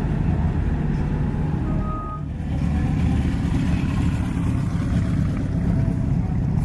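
Car engine running close by, a steady low rumble, with one short high-pitched tone about two seconds in.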